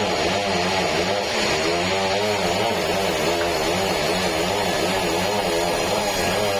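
Sawmill machinery running steadily: an engine-driven saw whose pitch wavers up and down as it works.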